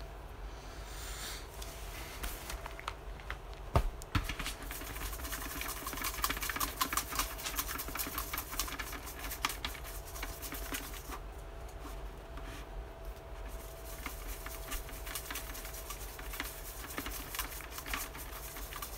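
Paper name slips rattling and rustling inside a plastic pumpkin bucket as it is shaken, in irregular clicks that start after a single sharp knock about four seconds in.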